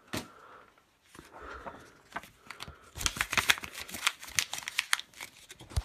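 DVD case being handled: a single knock just after the start, then a dense run of crackling clicks, thickest from about three to five seconds in.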